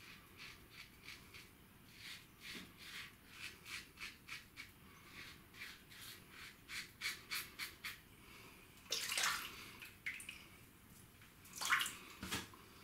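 Gillette Adjustable double-edge safety razor with a Gillette Nacet blade scraping through lathered stubble in quick, short strokes, about three a second. Later come two louder swishes of water as the razor is rinsed, the second near the end.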